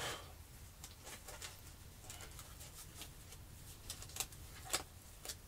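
Disposable food-prep gloves crinkling on hands as they work, an irregular scatter of soft crackles, with the loudest at the very start and a few sharper ones near the end.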